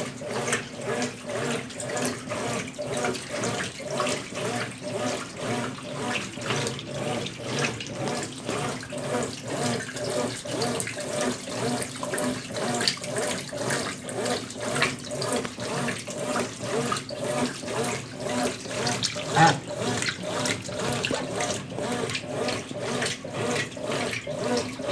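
Consul Facilite 10 kg top-loading washing machine agitating a load of towels and bedding in water during the rinse, a steady rhythmic sloshing. There is one louder knock about three quarters of the way through.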